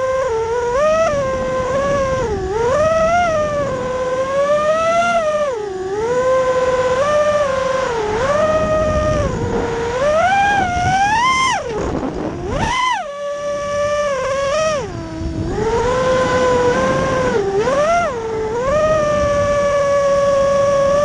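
FPV racing quadcopter's brushless motors and propellers whining, the pitch rising and falling with each throttle change. It drops sharply around twelve seconds in, as if the throttle is briefly cut, then picks up again.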